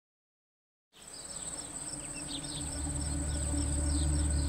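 Silence for about a second, then an evening insect chorus fades in: a steady high drone with crickets chirping over it again and again. A low hum builds underneath from about halfway in.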